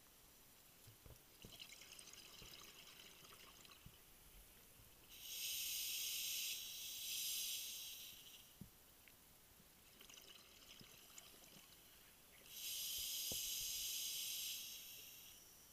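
Open-circuit scuba regulator breathing underwater: two breaths, each a quieter hiss of inhaling through the regulator followed by a loud rush of exhaled bubbles lasting a couple of seconds.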